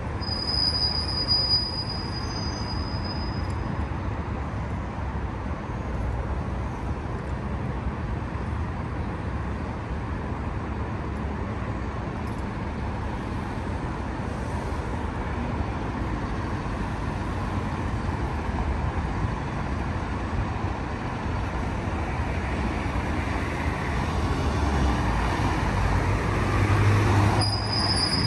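Street traffic: a steady wash of road noise from passing vehicles. A thin high squeal comes about a second in and again near the end, and a low engine rumble grows louder towards the end.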